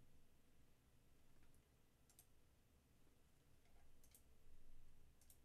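Near silence with a few faint computer mouse clicks, some in quick pairs.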